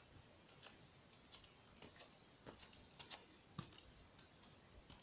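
Faint footsteps climbing stone steps: soft taps and clicks about every half second against near silence.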